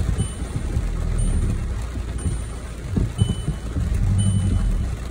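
Skoda Octavia II heard from inside the cabin, its engine running at low revs with an uneven low rumble. A short electronic warning beep from the car sounds about once a second.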